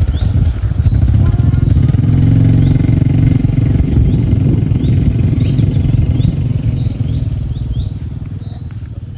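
A small engine running close by, loud and then fading out over the last couple of seconds, with faint bird chirps above it.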